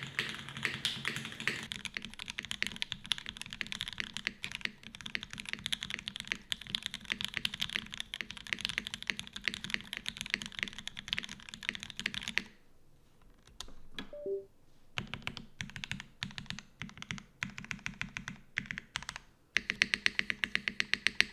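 Custom Hiney TKL One mechanical keyboard being typed on: aluminum-plate build with Oil Kings linear switches lubed with Krytox 205g0, GMK keycaps and Staebies stabilizers. It is typed quickly at first, then pauses about halfway through, with two short faint tones in the pause. Typing resumes more sparsely, then turns faster and louder near the end.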